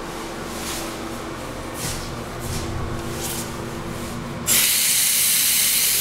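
Washbasin mixer tap turned on about four and a half seconds in, with water running hard into the sink in a loud, steady hiss.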